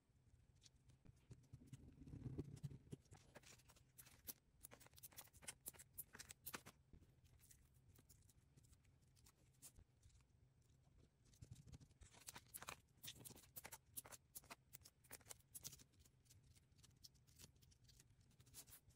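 Faint handling sounds of cardstock pieces on a cutting mat: light taps, clicks and paper rustles as pieces are pressed together and small adhesive foam squares are placed. A soft rubbing sound comes about two seconds in, and clusters of quick clicks come around the middle and again in the second half.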